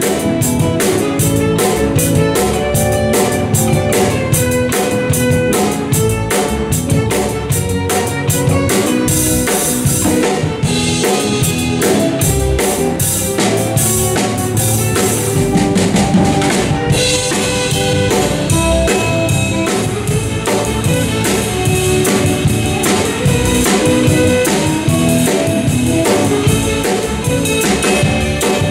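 Loud music with a steady drum-kit beat over held instrumental notes.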